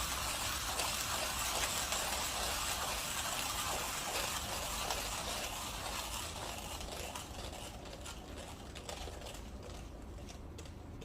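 Millwright hand coffee grinder crushing beans at an espresso-fine setting as the crank is turned, a dense gritty crunching. Over the second half it thins out into scattered crackles as the last beans pass through the burrs and the grind finishes.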